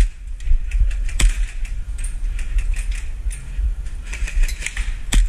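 Airsoft guns firing: a sharp single shot about a second in, then a quick run of clicking shots near the end, over a steady low rumble from the body-worn camera's microphone.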